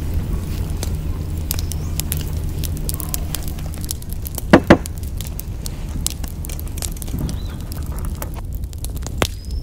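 Wood fire crackling with scattered small pops. A low steady hum runs under it and stops about four seconds in. Soon after, there are two sharp knocks in quick succession.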